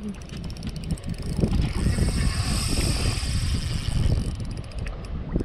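Fishing reel clicking in quick, even ticks as a hooked northern pike is played toward the landing net, over a low rumble of wind and handling noise.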